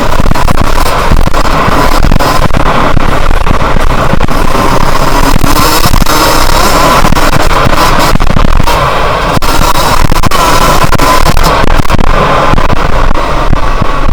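Yamaha YZ125's 125cc single-cylinder two-stroke engine running hard at high revs, very loud and crackling, distorted on the on-board camera's microphone.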